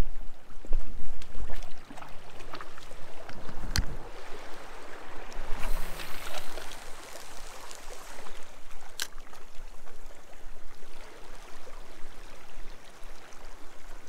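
Small waves lapping and sloshing against shoreline rocks, with wind rumbling on the microphone and scattered sharp clicks from handling the rod and spinning reel.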